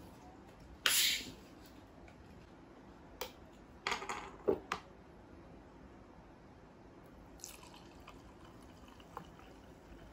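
A plastic bottle of Thums Up cola is unscrewed with a short loud hiss of escaping gas about a second in. A few sharp clicks and knocks follow, then the fizzy cola is poured into a glass.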